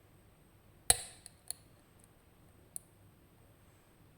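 Lock pick working the pins of a RUKO Garant high-security cylinder under tension: one sharp click about a second in, then three fainter clicks over the next two seconds, as the binding pins are lifted and set one by one.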